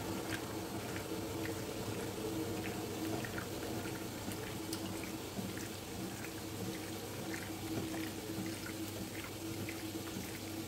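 Raw chicken livers being squeezed and turned by hand in a bowl: soft wet squelches and small sticky clicks, over a steady faint hum.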